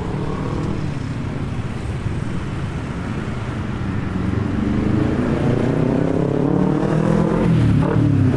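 Street traffic: a motor vehicle's engine hum grows louder from about halfway through, its pitch slowly rising as it draws near.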